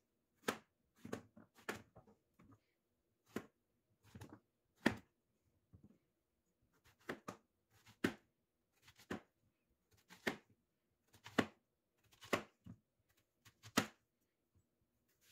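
Kitchen knife slicing a raw zucchini into rounds on a cutting board: each cut ends in a sharp knock of the blade on the board, at an uneven pace of about one a second, with a short pause midway.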